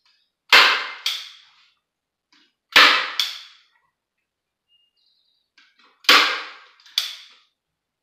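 Staple gun driving staples into the screen door's wooden frame: three loud, sharp snaps, each followed within a second by a smaller second snap.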